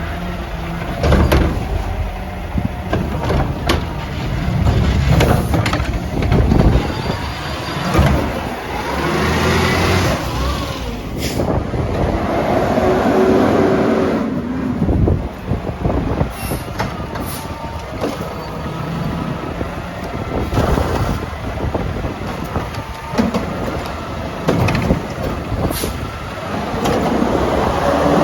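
Mack LR garbage truck working its route. The engine runs and revs, with a rising hydraulic whine from the packer and Curotto Can arm, scattered metal clanks and air-brake hisses. Wind buffets the microphone.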